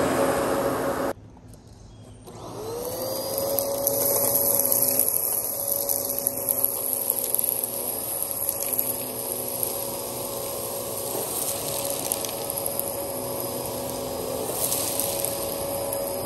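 Dyson DC14 upright vacuum cleaner running. The sound cuts out abruptly about a second in, then the motor whine rises and levels off into a steady hum with a light rattle of debris.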